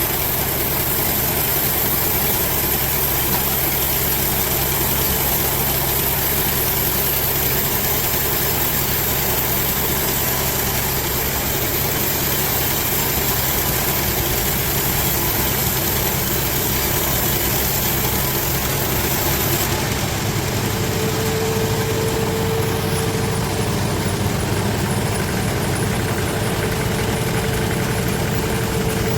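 Sawmill machinery running with a steady engine-like drone. About twenty seconds in, the high hiss falls away and a steady mid-pitched tone comes in.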